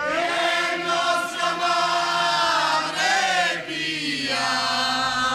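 A group of pilgrims singing a devotional chant to Saint Anne in unison, one long drawn-out phrase with a change of note about four seconds in.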